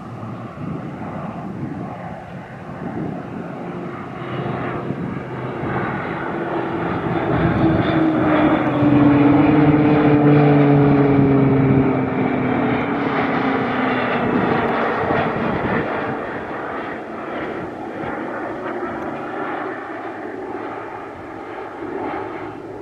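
PZL-130 Orlik turboprop trainer aircraft flying past: the engine and propeller sound swells to its loudest about ten seconds in, drops in pitch as the aircraft pass, then fades away.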